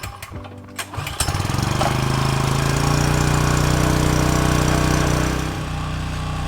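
Portable generator's small engine starting about a second in, its pitch rising as it comes up to speed, then running steadily, a little quieter near the end.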